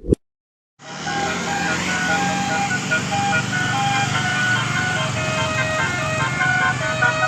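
A bus's multi-tone basuri telolet horn playing a tune of held notes over the running bus engine, starting suddenly about a second in.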